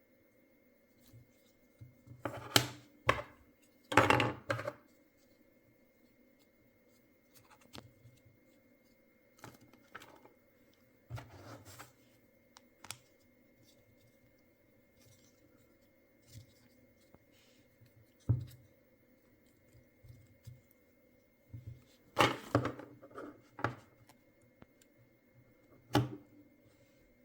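Intermittent handling noises of unboxing: short crinkles, rustles and clicks from packaging and small plastic toy parts being handled, in scattered bursts with quiet gaps between.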